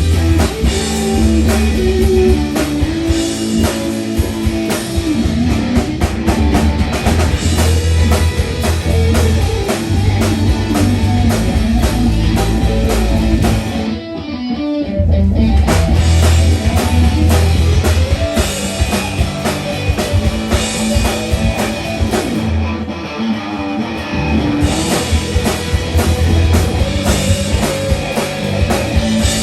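Live rock band playing an instrumental passage: electric guitar over a drum kit and bass. The band briefly drops out about halfway through, then comes back in.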